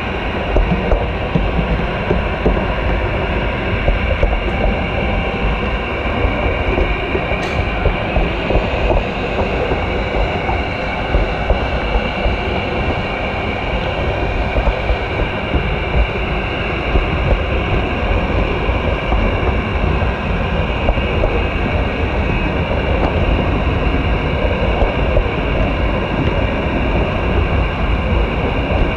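Gauge 0 model train rolling along its track, heard from a camera riding on one of its wagons: a steady rumble of wheels and running gear carried through the wagon. One sharp click comes about seven and a half seconds in.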